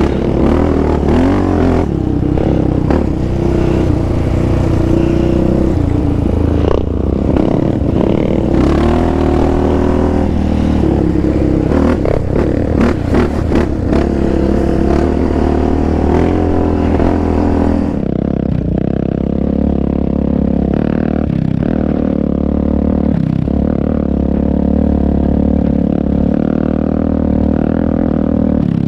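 Sport quad engine revving up and down while riding a rough dirt trail, with the rattle and scrape of the machine over rocks and ruts. About two-thirds through, the sound turns duller and steadier.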